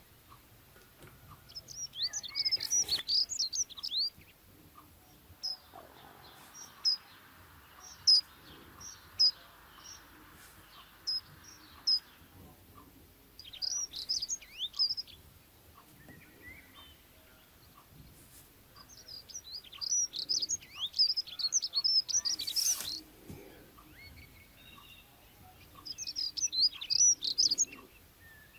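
Birds chirping: several bouts of rapid, high chirps lasting a few seconds each, with single chirps in between.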